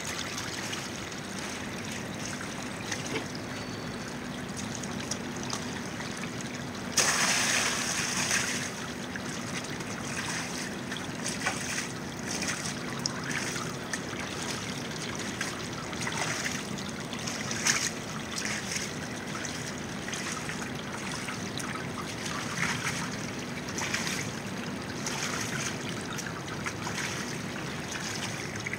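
Water trickling steadily, with a louder rushing burst about seven seconds in that lasts a second or so.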